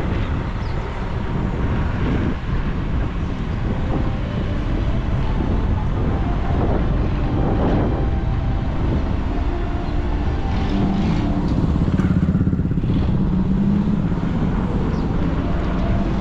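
Steady engine and road noise of a pickup truck on the move. A stronger engine hum rises between about ten and fourteen seconds in, then eases.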